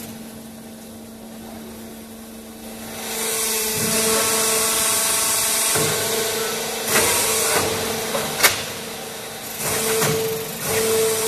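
Automatic clay interlocking brick-making machine running: a steady machine hum with louder, rushing stretches as it works through its cycle. One sharp knock comes in the second half.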